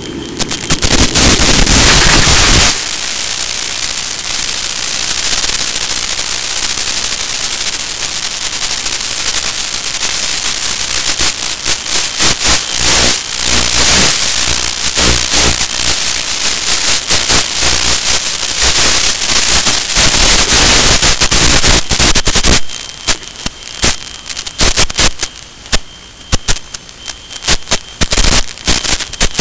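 Loud hiss and crackling static from an analog FPV video link's audio, with a louder stretch of noise that stops abruptly about two and a half seconds in, then breaking into dense irregular crackles that grow choppier near the end.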